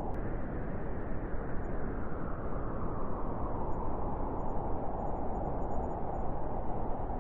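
Strong steady wind blowing, a dense rushing noise that eases slightly in the middle and swells again near the end.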